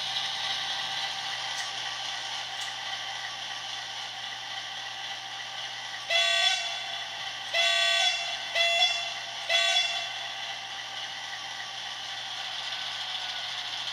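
Sound system of a WDG-4P diesel locomotive model sounding four short horn blasts, about a second apart, over the steady running of its recorded diesel engine sound, played through the model's small onboard speaker.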